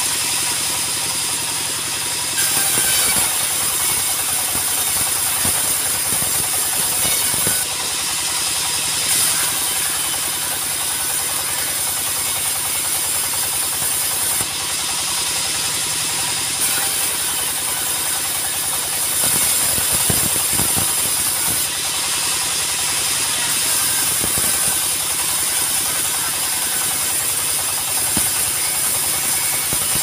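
Mobile band sawmill running steadily, its single-cylinder diesel engine and band blade sawing mahogany, with a high hiss that swells and eases several times. A few short knocks come through as slabs are moved on the carriage.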